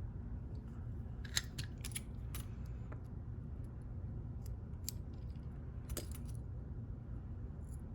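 Small metal lock parts, the pins and springs of a Goal S lock, clicking and clinking as they are handled during disassembly: a handful of light, sharp clinks, several close together in the first few seconds, then a few more spaced out.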